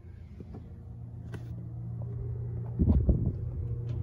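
Low rumbling wind and handling noise on a phone microphone being carried from the truck's cab to its open rear door, over a steady low hum; the rumbling turns much louder in gusts about three quarters of the way through, with a few faint clicks.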